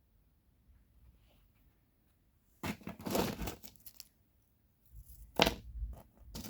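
Drill bit grinding into coal and hard mineralized rock in short, rough crunching bursts, with one sharp crack in the middle and quiet gaps between.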